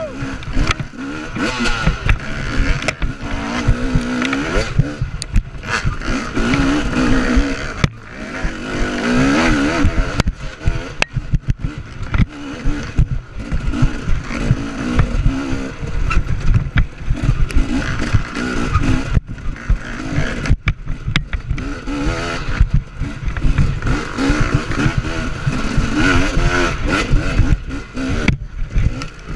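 Dirt bike engine revving up and down again and again as it is ridden hard along a rough wooded trail, heard from the rider's chest, with a constant rumble and knocks from the ride.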